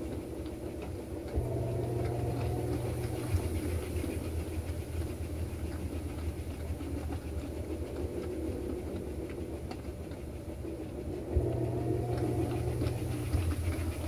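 Panasonic 16 kg top-load washing machine on its spin cycle: the drum spinning with a steady low motor hum. The hum grows louder for about two seconds, about a second and a half in and again near the end.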